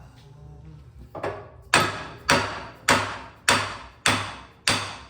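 Hammer striking steel, driving out a U-joint on a Dana 30 axle shaft: a light tap, then six hard blows about every 0.6 s, each ringing briefly.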